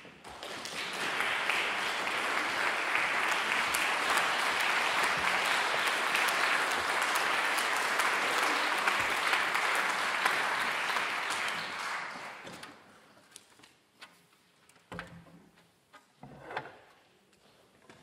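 Audience applauding in a concert hall, building up within the first second, holding steady, then dying away about twelve seconds in. A few soft knocks follow as the players settle.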